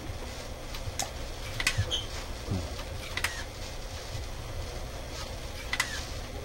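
Small sharp mechanical clicks from the robot head's motors and linkages as its face moves, about five of them with two close together near two seconds in, over a steady low hum.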